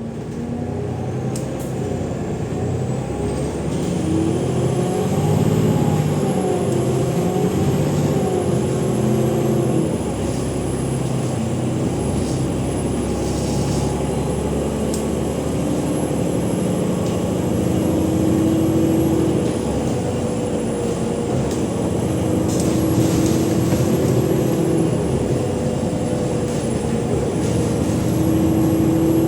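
Cummins ISL8.9 diesel engine of an Alexander Dennis Enviro 500 MMC bus running under load, its pitch shifting as it pulls. Over it sounds a loud, high turbo whistle that rises in the first few seconds and then holds, wavering slightly.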